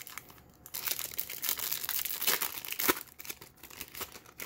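Foil wrapper of a Bowman's Best trading card pack being torn open and crinkled by hand: dense crackling and tearing from about a second in, easing off after about three seconds.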